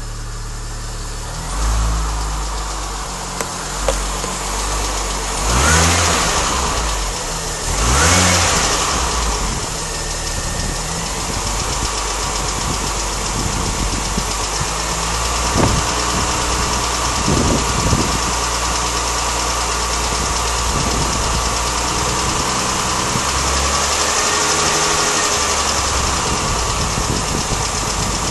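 Mini Cooper S engine running with two brief revs about six and eight seconds in, then settling back to idle, with a light ticking or tappety noise that the owner places around the timing chain area.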